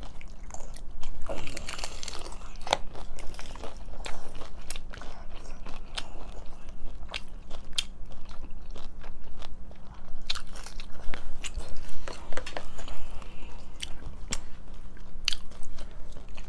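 Close-up crunching and chewing of hard taco shells: frequent sharp, irregular crunches as the shells are bitten and chewed.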